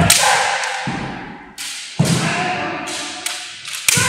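Kendo sparring: bamboo shinai cracking against armour and each other, about six sharp knocks that echo in the hall. The heaviest comes first, as a foot stamps on the wooden floor with a strike.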